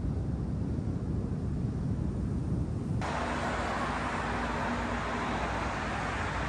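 Steady outdoor rumble and hiss with no clear single source, changing abruptly about three seconds in to a brighter, hissier noise.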